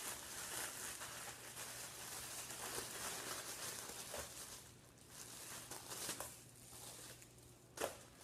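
Plastic zip-top bag crinkling and rustling as vegetables in an oil marinade are squeezed and kneaded through it by hand. The rustling dies down about five seconds in, leaving a few light clicks and a sharper knock near the end.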